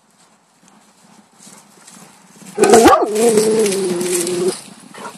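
A dog lets out one long, drawn-out cry about halfway in, lasting about two seconds, while horses gallop past close by through tall grass, their hooves thudding.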